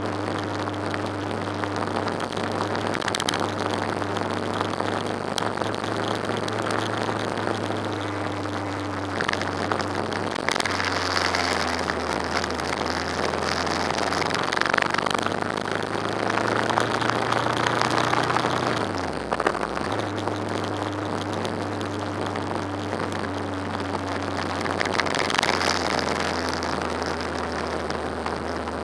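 Motorcycle engine running at a steady cruise under heavy wind and road noise on the microphone. About nineteen seconds in the engine note falls away briefly and then picks up again.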